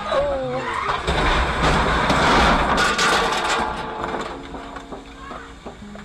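A car skidding: a short tyre squeal, then a loud rushing noise with a few sharp knocks that fades after about four seconds. Background music comes back in near the end.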